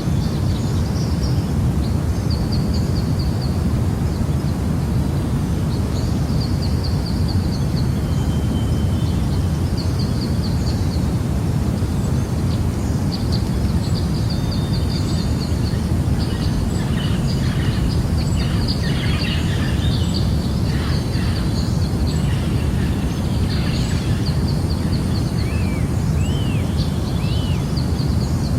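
Jungle ambience: a steady low rush under birds calling. Short high trills repeat every few seconds, a busier flurry of chirps comes in the second half, and a few upswept calls are heard near the end.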